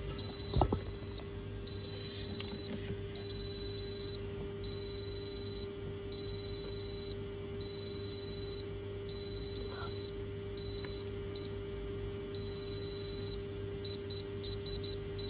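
Autumnz 8-in-1 baby food processor's error alarm beeping: high beeps about a second long, one every second and a half, then a quick run of short beeps near the end, over a faint steady hum. The alarm signals the E1 error, lack of water in the steam tank.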